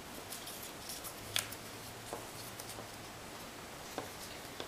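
Soft rustling and light crinkling of double-sided paper as petal edges are rolled around a bamboo skewer, with a couple of small sharp clicks, one about a second in and one near the end.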